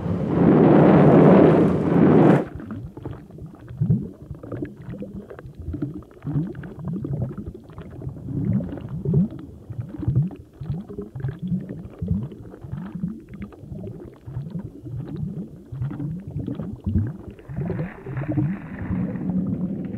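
Sound-design effects of the inside of the body: a loud rushing whoosh for about two seconds, then a long run of gurgles, each dropping in pitch, a few a second, with a hissing rush joining near the end.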